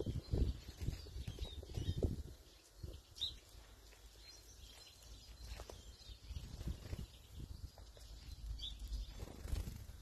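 Small garden birds at a seed feeder giving short, high chirps now and then, over a low, uneven rumble that is loudest in the first two seconds and again near the end.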